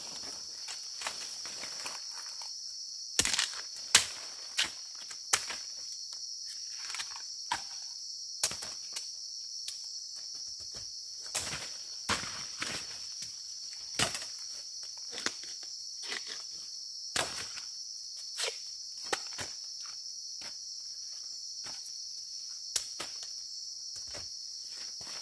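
Footsteps crunching through dry bamboo leaves and twigs, with irregular sharp crackles and snaps, the loudest about three and four seconds in. A steady high-pitched insect drone runs underneath.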